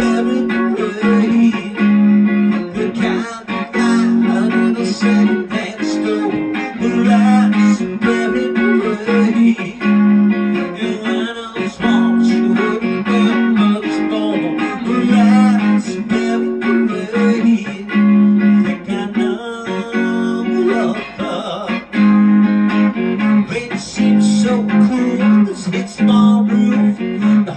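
Harley Benton Madcat, a Telecaster-style electric guitar, played through an amp: a riff of low notes that repeats every couple of seconds.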